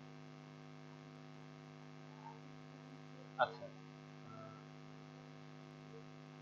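Steady electrical mains hum, with one short sharp sound about three and a half seconds in.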